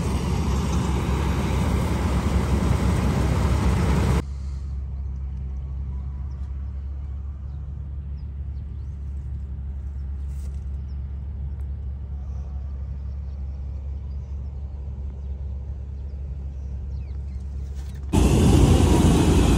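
A combine harvester running close by for about four seconds. It cuts suddenly to a quieter, steady low hum of a tractor's diesel engine idling. Louder engine noise returns a second or so before the end.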